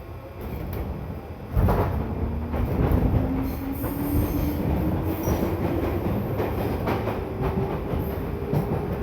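Inside a JR 205 series 1000 electric train accelerating: the traction motor whine rises steadily in pitch over rumbling wheels. A loud jolt comes about one and a half seconds in, followed by rail-joint clatter.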